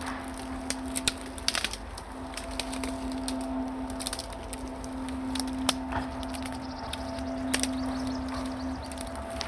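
Dry twigs and undergrowth snapping and crackling underfoot as people push through dense scrub: a scattered series of sharp cracks, with a steady low hum underneath.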